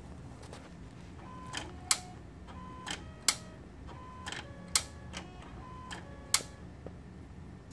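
Alienware Aurora R5's DVD drive mechanism cycling on its own: four rounds of a brief motor whir that ends in a sharp click, about one every one and a half seconds. The repeated cycling is the drive fault.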